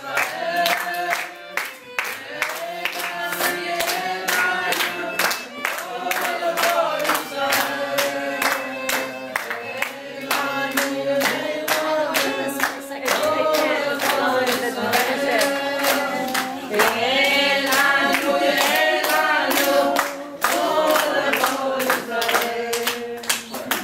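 A roomful of people singing a song together and clapping along in a steady beat.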